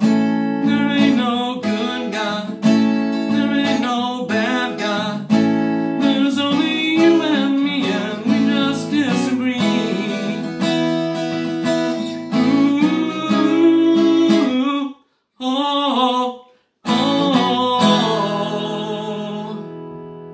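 Steel-string acoustic guitar strummed in the song's closing instrumental, chords with a regular stroke. The playing stops twice briefly about three quarters of the way through, then a final chord rings out and fades.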